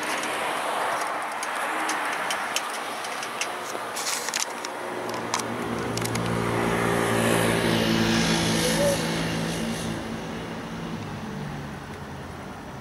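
Road traffic going by: a broad tyre hiss, then a passing vehicle's engine that swells about five seconds in and fades away again near the end. A few light clicks sound in the first half.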